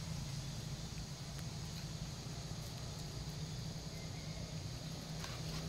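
Steady low hum under outdoor background noise, with a couple of faint clicks near the end.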